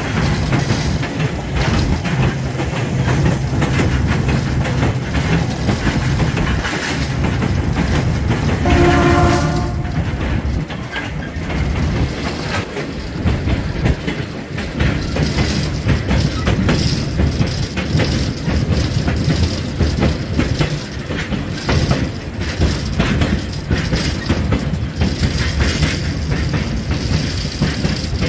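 A passenger train rolling along, heard from an open car: a steady rumble with wheels clacking over the rail joints. A locomotive horn sounds once, briefly, about nine seconds in.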